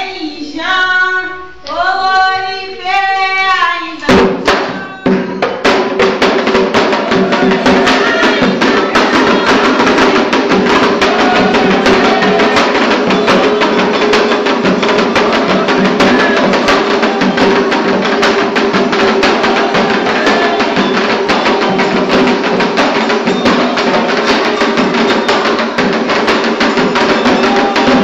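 Candomblé ritual music: singing, joined about four seconds in by loud, fast atabaque hand drumming and percussion that keeps a dense, steady rhythm.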